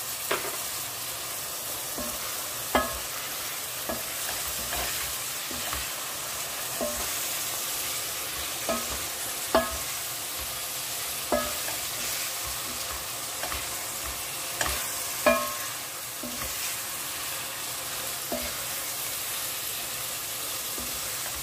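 Minced meat and chopped vegetables sizzling with a steady hiss as they fry in a pot, stirred with a spatula that knocks and clinks against the pot every second or two.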